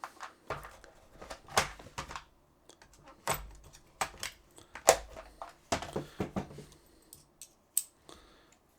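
Irregular small clicks, knocks and rattles of hard plastic and metal as a screwdriver bit is taken from its case and fitted into the driver handle.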